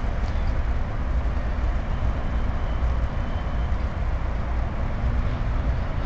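Steady outdoor background noise: a low, unsteady rumble under an even hiss.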